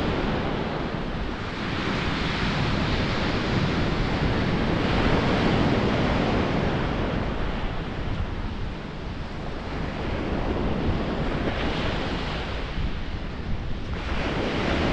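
Sea surf breaking and washing up a stony beach, swelling and fading in surges a few seconds apart, with wind buffeting the microphone.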